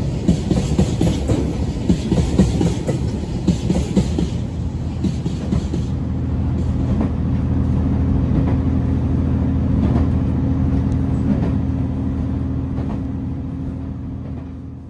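A freight train hauled by a JR Freight EH200 electric locomotive running by, its wheels clattering irregularly over the rail joints for the first six seconds or so. A steady low hum then takes over and fades toward the end.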